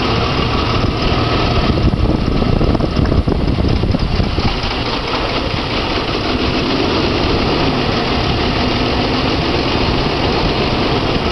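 Jeep 4.0-litre inline-six idling with only three of its six cylinders firing, the other spark plugs pulled; it keeps running without stalling.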